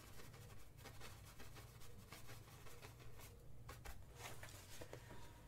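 Faint short strokes of a small paintbrush on stretched canvas, repeated irregularly over a low steady room hum.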